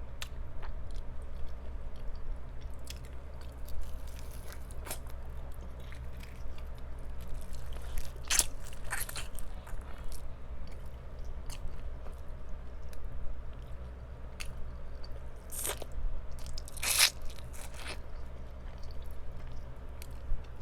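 Close-up biting and chewing of crispy fried chicken, with crunches of the fried crust, loudest in two clusters about eight seconds in and again around sixteen to eighteen seconds in.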